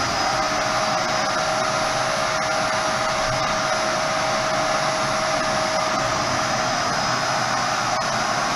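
Canister vacuum cleaner running steadily as its hose and floor nozzle are worked over a concrete floor, a continuous rushing suction noise with a faint steady whine.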